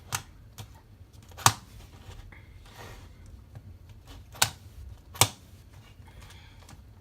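Rubik's Cube layers turned by foot, the plastic clicking as turns snap into place: four loud, unevenly spaced clicks with fainter clicks between them.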